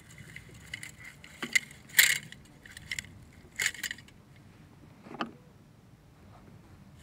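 Metal clicks and clinks as the wire legs and pot supports of an MSR Dragonfly camp stove are swung out by hand, a few scattered snaps with the sharpest about two seconds in.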